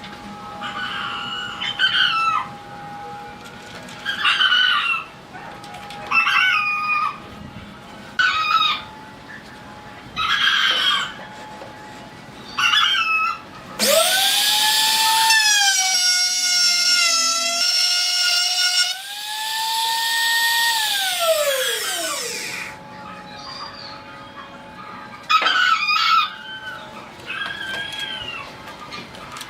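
Chickens calling in short, pitched calls about every two seconds. About halfway through, a small electric motor whines for about eight seconds: it rises in pitch, holds, then winds down and stops, over a faint steady hum.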